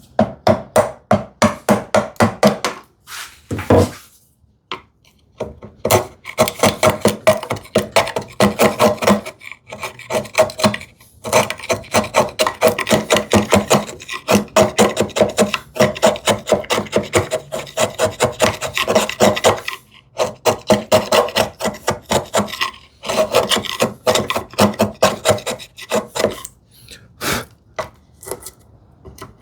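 Narrow chisel scraping and paring waste from the bottom of a housing dado in wood, in quick short strokes of about four or five a second. The strokes come in runs several seconds long with brief pauses between them, and thin out near the end.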